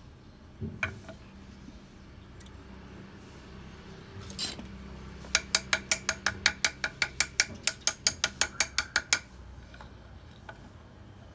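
A rapid run of about twenty sharp metallic clicks or taps, about six a second, lasting some four seconds, after a couple of single knocks near the start; a faint low hum lies underneath.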